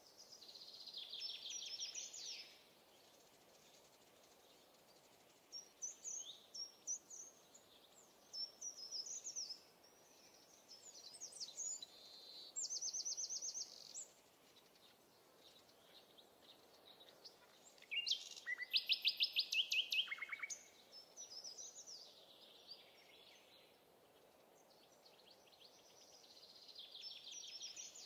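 Songbirds singing: several separate phrases of high trills and chirps, the loudest a fast run of repeated notes about 18 seconds in, over a faint steady outdoor hiss.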